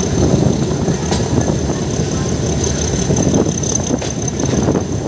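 Metre-gauge passenger train running, heard from an open coach window: a steady rumble from the wheels and track, with irregular rattles and clacks from the coaches. A thin, high whine sits above it.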